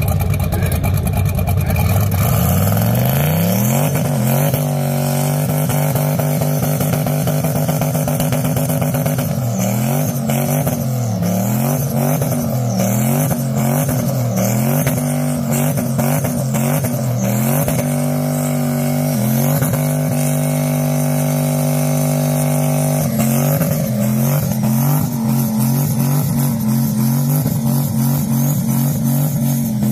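Vehicle engine held at high revs for a burnout. It revs up over the first few seconds, then stays high, with the pitch swinging up and down about once a second through the middle as the throttle is worked, and steadies again near the end.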